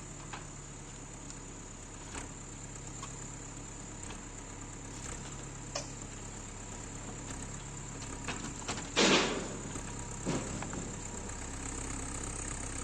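Diesel engine of a Rottne Rapid forest machine running steadily. Scattered knocks and cracks come through as the cabin is taken apart, with a louder crash about nine seconds in and a smaller one a second later.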